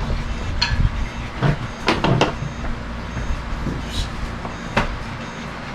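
Small plastic and metal parts of an RC truggy wheel hub clicking and knocking as it is pulled apart by hand, several sharp clicks with a quick cluster about two seconds in, over a low steady hum.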